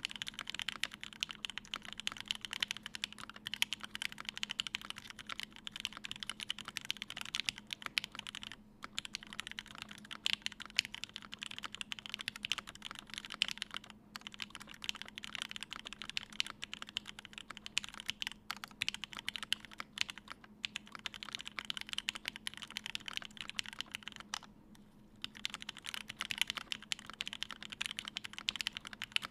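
Continuous typing on a GHS.RAR mechanical keyboard with lubed and filmed Gateron Ink linear switches on an aluminium plate, capped with GMK doubleshot keycaps. The keystrokes come in a dense clatter with a few brief pauses and one longer pause of about a second near the end.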